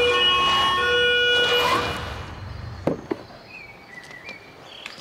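German police two-tone siren sounding its alternating high and low notes, loud, then cutting off about two seconds in. A couple of sharp knocks follow a little under a second later.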